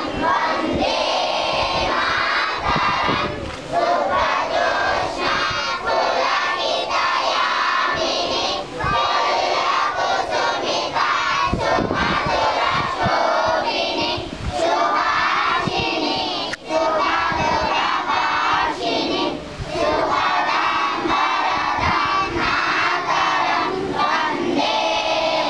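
A large group of schoolchildren's voices in unison, loud and continuous, in phrases of a few seconds separated by brief breaks.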